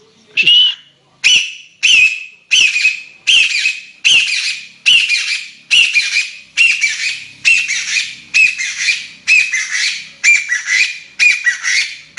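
A series of about sixteen high, squawking squeaks at an even pace, roughly one every three-quarters of a second, each starting sharply and fading.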